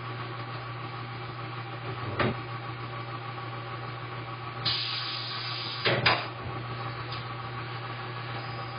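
Tyre changer being worked: a sharp clank about two seconds in, then a hiss lasting about a second, followed by a pair of clanks, over a steady low hum.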